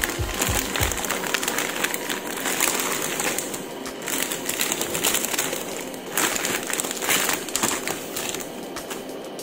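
Thin clear plastic bags crinkling and rustling in quick, irregular bursts as hands pull them open and move the wrapped plastic model-kit parts runners around.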